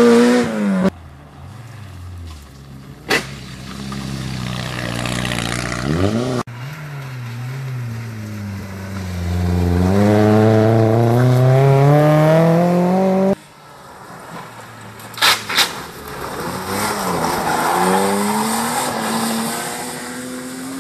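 Rally cars taking a hairpin one after another. Each engine's pitch falls as the car slows into the bend, then climbs steeply as it accelerates away through the gears. There are a few sharp clicks between cars, and the sound changes abruptly several times.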